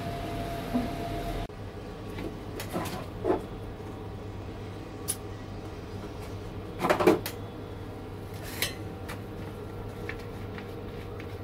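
Steady machine hum inside a tower crane's cab, stepping down slightly about a second and a half in, with scattered clicks and knocks; the loudest is a short cluster of knocks about seven seconds in.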